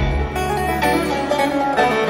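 Live string band playing an instrumental passage between sung lines: electric and acoustic guitars, banjo, mandolin and upright bass, the bass dropping back for most of the passage.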